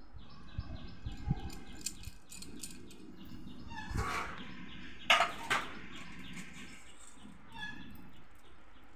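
Dry, crisp snack toppings crackling and crunching as they are crumbled by hand over a steel plate: a run of small crackles, then louder crunches about four and five seconds in.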